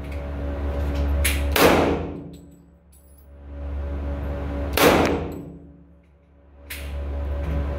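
Handgun shots in an indoor shooting range: two loud shots about three seconds apart, a little over a second and a half in and near five seconds, with softer cracks just before the first and near seven seconds. A steady low hum lies under them, fading after each shot and swelling back.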